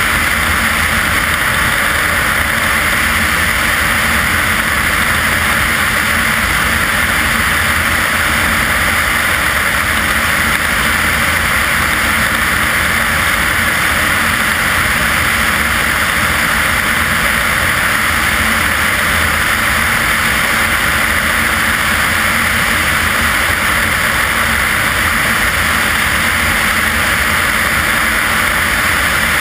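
Light propeller aircraft's engine and propeller running steadily in flight, with a constant rush of airflow over an outside-mounted camera.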